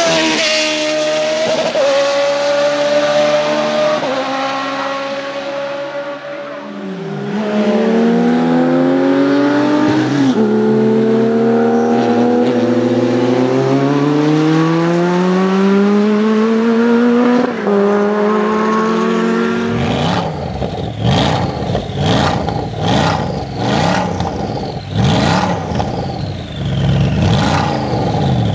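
Racing car engines at full song: a sports prototype passing at high revs, then a race car accelerating through several gear changes, its pitch climbing between each shift. About twenty seconds in, a stationary Gumpert Apollo's twin-turbo V8 is revved in short repeated blips, with crackles and pops from the exhaust.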